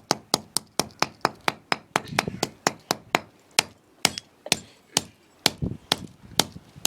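Hammer striking an old Nokia mobile phone again and again in quick, sharp blows, about four a second at first, slowing to about two a second after three seconds.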